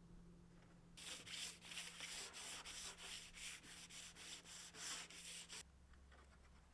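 Sandpaper rubbed by hand in quick back-and-forth strokes, about four or five a second. It starts about a second in and stops suddenly some four and a half seconds later.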